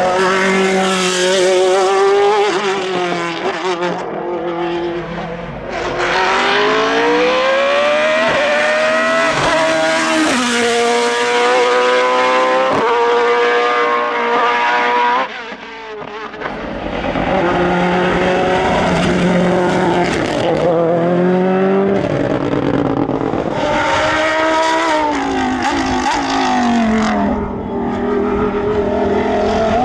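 Hillclimb prototype race car's engine at high revs, climbing in pitch as it accelerates through the gears, dropping sharply at each shift and falling away where it slows for corners.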